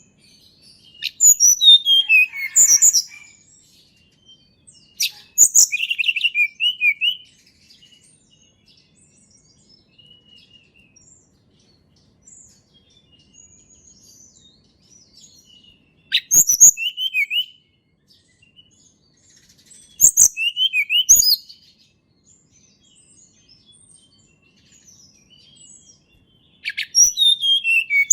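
Tledekan gunung, a small songbird, singing in five short bursts of rapid high, sweeping notes, several of them falling in pitch, with faint chirps in between.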